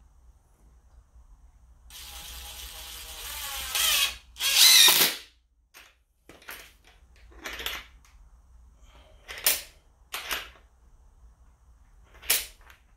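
Cordless drill boring into the base of a wall: it runs steadily for about two seconds, then louder under load for about a second. Several short, sharp bursts follow, a second or two apart.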